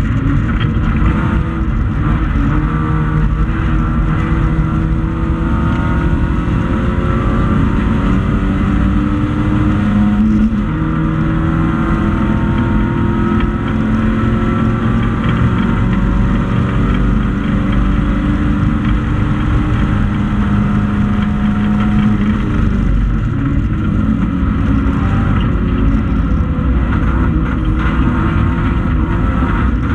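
Classic Stock Hatch race car's engine at racing speed, heard from inside the stripped cabin. The revs climb and fall again and again as the car accelerates, changes gear and slows for corners.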